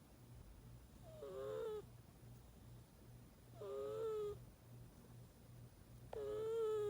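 Snoring: three high-pitched snores, each under a second long, about two and a half seconds apart.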